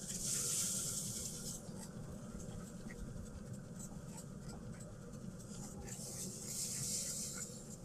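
Trigger spray bottle misting liquid onto meat on a smoker rack: two hissing spells of spraying, each about a second and a half long, one at the start and one near the end.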